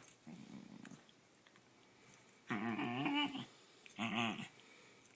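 A pet dog making funny playful vocal noises: a faint low rumble just after the start, then two louder drawn-out calls whose pitch wavers up and down, about two and a half and four seconds in.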